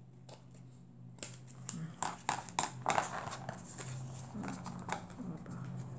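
Scissors snipping at the edge of a paper card: a quick run of sharp clicks and snaps about a second in. Then paper rustling and tapping as the card is handled.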